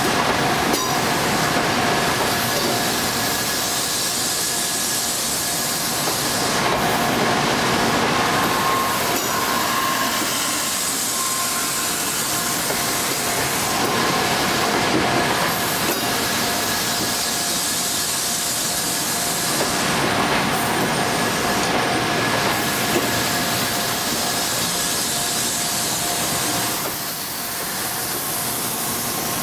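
N700A Shinkansen trainset rolling over a level crossing: a steady hiss of wheels and running gear on the rails, with a few faint steady tones.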